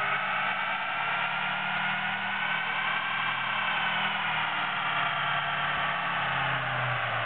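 Pickup truck run hard on a chassis dyno, engine and rollers whining under load, the pitch climbing slowly for about four seconds and then easing off.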